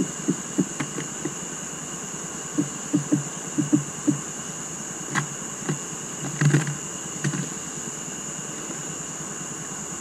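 Irregular dull thumps and a few sharper taps on the wooden bird feeder, from tits landing, hopping and pecking on the wood, with a great tit at the entrance hole about six seconds in. A steady high hiss runs underneath.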